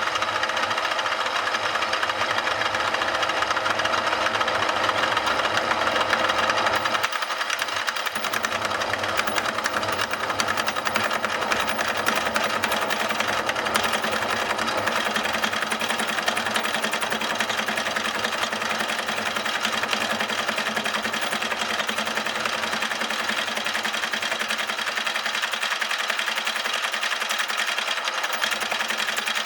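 Milling machine running, its cutter machining the flat face of a Ural motorcycle's front engine cover. The steady, dense machining sound carries through, with a slight change in tone about seven seconds in.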